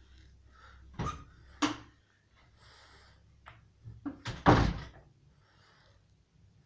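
A few sharp knocks and thumps: one about a second in, another just after a second and a half, then a quick cluster about four seconds in, the last of them the loudest.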